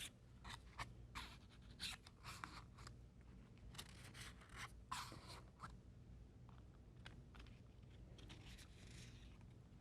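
Faint, irregular scratches and light taps as a word is built up on the board with letters.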